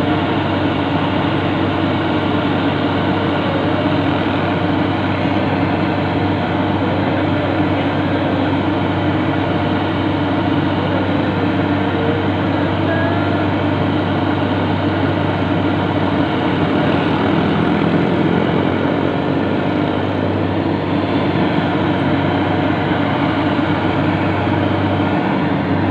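Yanmar YH850 combine harvester's diesel engine running steadily under way, with a constant mechanical hum and clatter.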